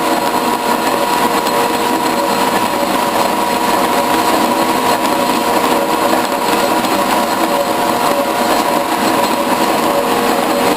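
Metal lathe and metal shaper running together: a steady machine whine with a few held tones that does not change.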